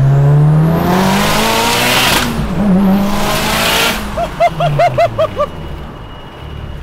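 Stroked 2.2-litre turbocharged 4G63 four-cylinder of a Mitsubishi Lancer Evolution 8 race car pulling hard under boost. The engine note climbs with a rising turbo whistle and a loud rush, breaks off briefly about two seconds in, pulls again, then backs off near four seconds. Laughter follows.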